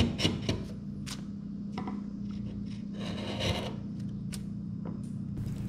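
Bench chisel paring waste from the floor of a dado in a wooden board, bevel down: a few light clicks near the start, then intermittent scraping and shaving of the blade across the wood.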